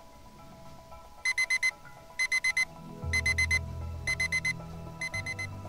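Digital alarm beeping in groups of four quick, high beeps, one group about every second, five groups in all. Soft background music plays underneath, its bass coming in about halfway through.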